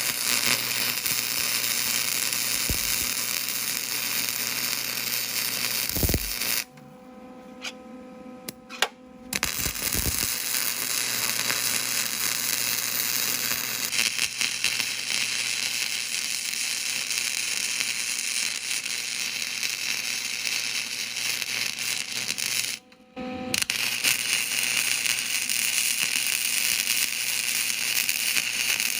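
Electric welding arc crackling steadily while plug-welding half-inch steel pins to a flat bar. The arc stops twice, for about two and a half seconds and then for under a second, between welds.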